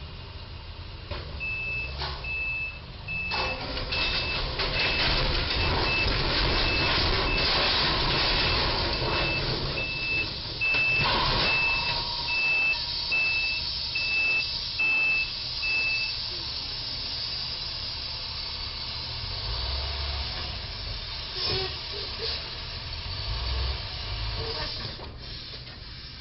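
Moving box truck's back-up alarm beeping steadily at one high pitch as the truck reverses, over its engine running and a loud rough rushing noise. The beeping stops a little past halfway.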